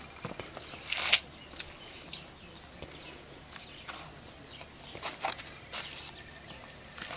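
Footsteps crunching on a sandy, gravelly path: scattered short crunches, the loudest about a second in and a few more between five and six seconds.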